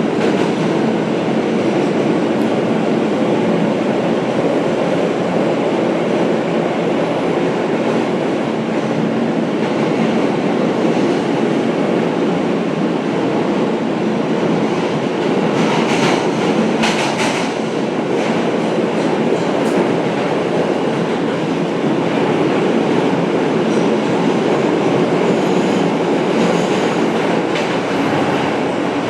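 New York City Subway F train running at speed through the tunnel, heard from inside the car: a loud, steady rumble of wheels on the rails, with a few sharp clacks a little over halfway through.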